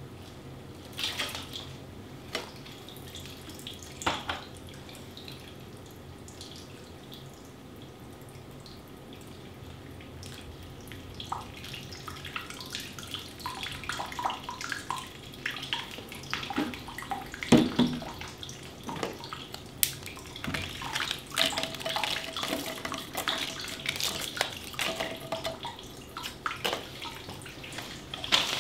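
Water trickling steadily from a plastic watering can into the soil of freshly potted houseplants, watering them in. From about halfway on, the pouring gives way to many small clicks and rustles as small items are handled on a plastic seed tray.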